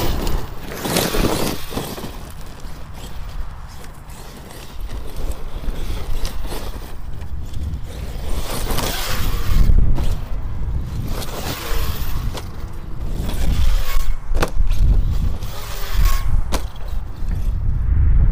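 Arrma Kraton 8S RC monster truck, with a Hobbywing Max5 and 1100kv brushless setup, driving hard over rough dirt and gravel. Its motor whines up and down in pitch under the noise of tyres on the ground, and there are a few sharp knocks from the truck hitting or landing.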